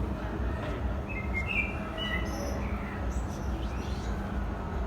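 A small bird chirping: a few short high chirps in quick succession about one to two seconds in, over a steady low background rumble.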